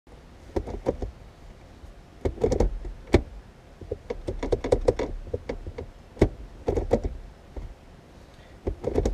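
Irregular sharp clicks, taps and knocks of an aftermarket shift knob and its adapter being handled, fitted and worked onto a car's automatic shifter post. They come in clusters, with short bursts of rattling about two and a half, five and seven seconds in.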